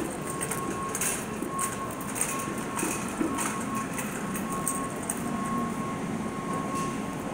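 Shopping cart rolling over a concrete store floor, its wheels and basket rattling with irregular clicks. An electronic beep repeats on and off in the background.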